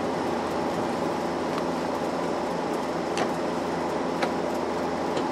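Steady hum of a house air-conditioning unit running, with two faint light clicks about three and four seconds in.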